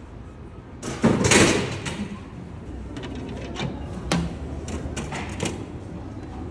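A drink can dropping inside a vending machine and landing in the delivery bin with a loud clattering thud about a second in, followed by several clicks and knocks as the bin's flap is pushed open and the can is taken out.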